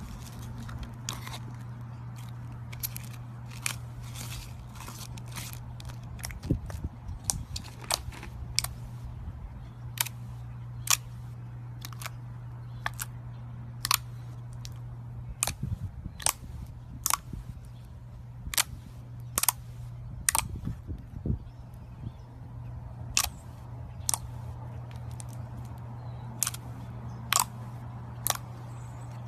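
Slime being worked by hand, giving off sharp, irregular clicking pops, about one or two a second, over a steady low hum.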